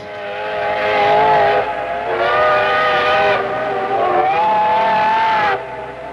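Steam locomotive whistles of a triple-headed JNR steam train, sounding several notes at once in long blasts with short breaks. The pitch wavers slightly, and the whistling cuts off abruptly near the end.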